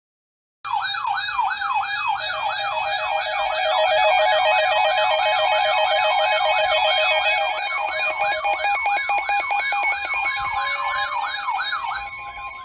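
Electronic siren starting about half a second in, sweeping quickly up and down in pitch about three times a second, with steady high tones layered over it. It drops away near the end as a single steady tone takes over.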